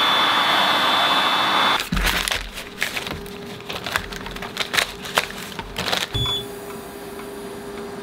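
Heat gun blowing steadily with a thin whistle over clear badge film for about two seconds, then cutting off. Then the plastic film crinkles and crackles for several seconds as it is pulled and crumpled off the embroidered patch by hand.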